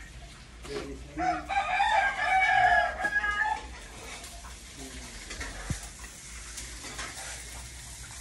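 A rooster crowing once, a single long wavering call of about two and a half seconds starting about a second in.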